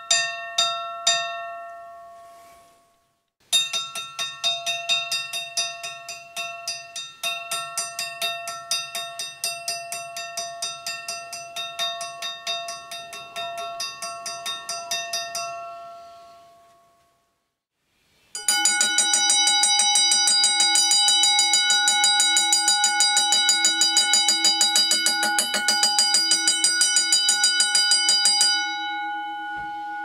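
Dutch railroad crossing bells, several different bells heard one after another, each rung by its hammer in a steady train of strokes. A slow bell at about two strokes a second dies away in the first few seconds. After a short silence a faster bell rings for about twelve seconds and fades out. After another pause a louder, higher-pitched bell rings fast for about ten seconds, with a quieter ring carrying on near the end.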